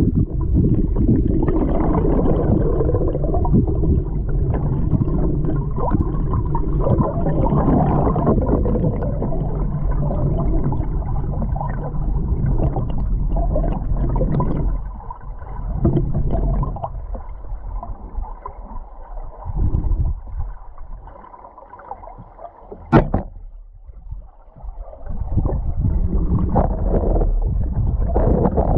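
Muffled rush and gurgle of river current heard through an underwater camera in its housing, with many small knocks in it. It falls much quieter for several seconds past the middle, then builds again. A single sharp knock comes a few seconds before the end.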